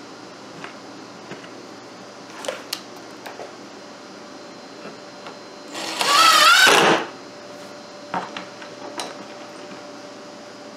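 A power drill driving a screw down into a wooden bench top in one burst of a little over a second, about six seconds in, its motor whine rising and wavering. Scattered sharp clicks and clinks of small parts being handled come before and after it.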